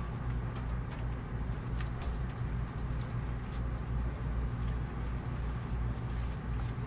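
Steady low rumble of an idling vehicle engine, with a few faint ticks and clicks over it.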